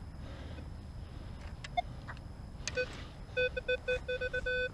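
Metal detector beeping on a buried metal target: one beep, then a run of short beeps that quicken into a steady tone in the last second or so.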